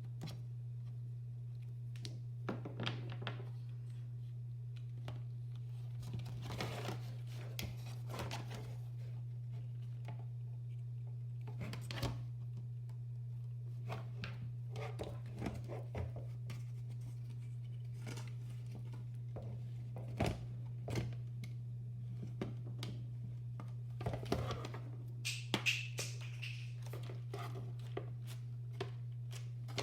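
Mechanical keyboard parts and tools being handled on a workbench: scattered small clicks, knocks and short rustling scrapes, busiest near the end, over a steady low hum.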